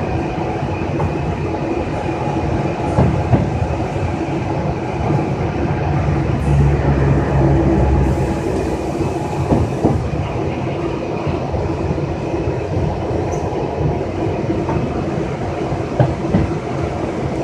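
Gwangju Metro train running at speed, heard from inside the car: a steady rumble of wheels on rail with a steady hum underneath and a few faint clicks over the track. The low rumble swells for a couple of seconds about six seconds in.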